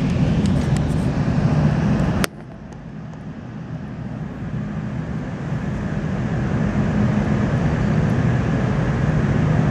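Delta Boeing 767-300 taxiing on a single running jet engine, heard through terminal window glass as a steady low rumble. The sound cuts off abruptly about two seconds in, then the engine noise builds steadily louder as the jet approaches the gate and holds.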